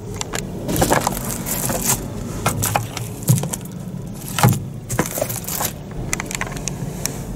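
Car sun visor being handled: its protective plastic film crinkling and rustling, with clicks and knocks as the visor is pulled down and its vanity mirror cover opened and shut. A low steady hum runs underneath.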